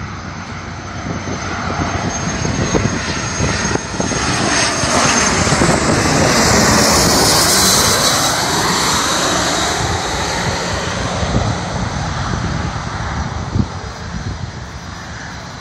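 Twin-engine business jet on landing approach passing low overhead: the engine noise swells to its loudest about seven seconds in, with a high whine and sweeping tones that fall in pitch as it goes over, then eases off as it moves away.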